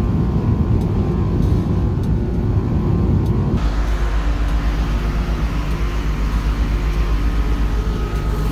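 Road noise inside a car at motorway speed, a steady low rumble of engine and tyres. About three and a half seconds in it changes abruptly to a louder hiss over the rumble, as of tyres on a wet road.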